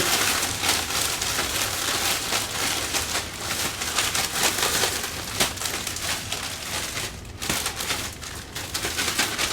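Plastic zip-top bag being shaken by hand, crinkling and rustling, with pieces of fish and dry seasoned batter mix tumbling inside as the fish is coated. The crinkling is dense and irregular, easing for a moment about seven seconds in before picking up again.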